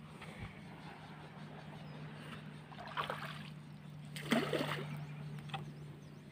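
Steady low hum of a boat engine running, with a couple of brief splashy noises about three and four and a half seconds in.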